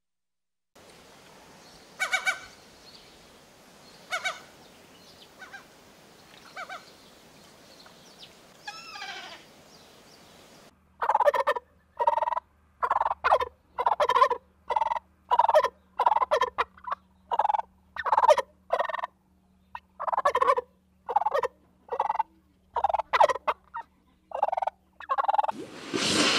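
Turkeys gobbling: a few scattered calls, then from about eleven seconds in a dense run of loud, repeated gobbles, more than one a second.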